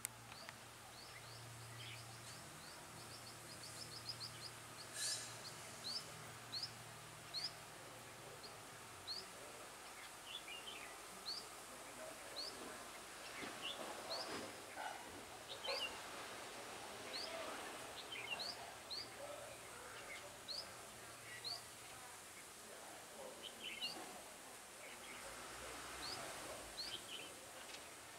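Red-whiskered bulbuls calling: many short, high, rising chirps scattered throughout, with some lower warbled song notes in the middle.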